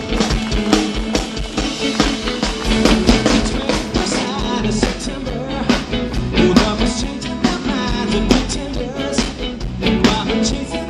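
A rock band playing a song with singing and a steady drum beat.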